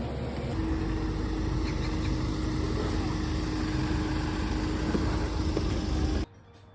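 Steady low rumbling noise with a steady hum over it, cut off abruptly about six seconds in.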